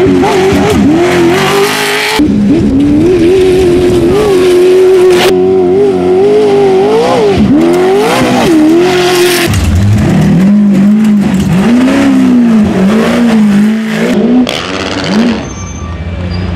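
Class 1 unlimited desert race buggy's engine at hard throttle, the note rising and falling as it revs over jumps and through the sand, in several short passes cut together abruptly. About ten seconds in the engine note drops lower, and the sound grows quieter near the end.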